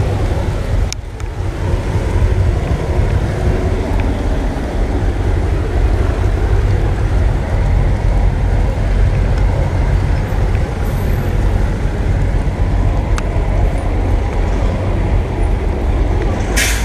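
Street traffic on a wet road: a steady mix of passing vehicles and tyre noise over a heavy low rumble. There is a brief dip about a second in and a short sharp noise near the end.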